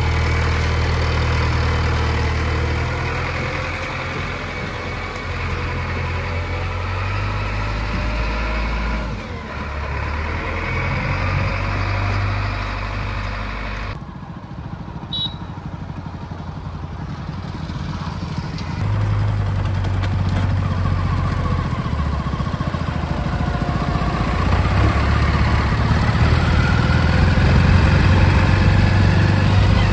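Diesel engine of a JCB backhoe loader running under varying load, its revs stepping up and down as it works. It gets louder in the last few seconds.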